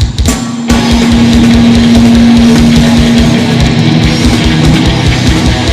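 Heavy metal band playing live, with distorted guitar over a fast, even drum beat. After a brief break it comes back in fully under a second in, with one note held for about three seconds.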